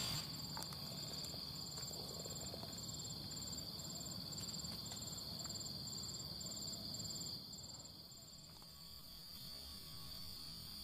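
Insects chirping: a steady high buzz with a rhythmic chirp about twice a second. The chirping stops about seven seconds in.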